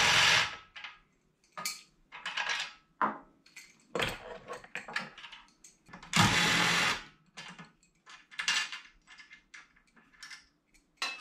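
A power tool motor runs in two short bursts of about a second each, one right at the start and one about six seconds in, with clicks and clatter of metal parts and tools being handled in between.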